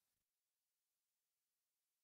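Near silence: only a very faint hiss.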